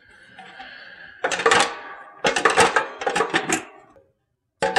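Sheet-steel electrical box cover clattering and scraping against the enclosure as it is handled and fitted back on: a light scrape, then three quick bunches of metallic rattles and clicks, and another clatter near the end.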